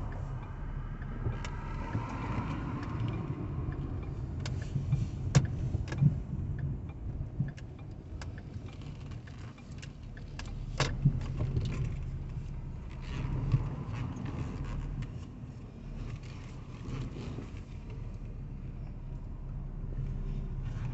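Car cabin noise while driving: a steady low engine and road rumble, with scattered sharp rattles and clicks, the loudest about five and eleven seconds in.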